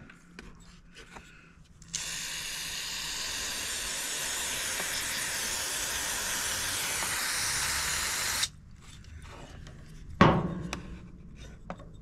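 Pressurized spray hissing steadily for about six seconds into the float bowl of a Yamaha EF4500ISE generator's carburetor, clearing it out, then cutting off sharply. About ten seconds in there is a brief loud knock.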